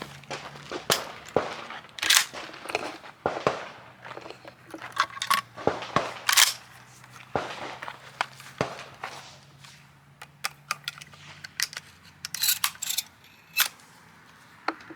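Gunfire: a long, irregular string of sharp shots, some loud and some fainter, often a second or less apart.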